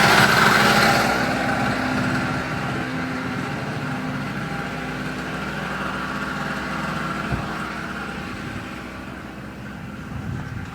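Small two-stroke engine of a Storm Cat 800-watt portable generator running steadily, loud for about the first second and then gradually fainter.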